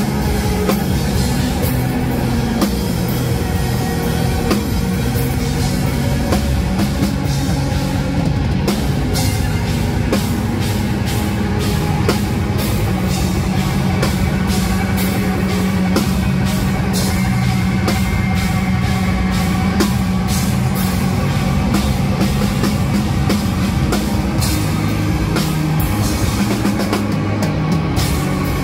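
Rock band playing live and loud: electric guitar over a drum kit, with steady drum hits throughout.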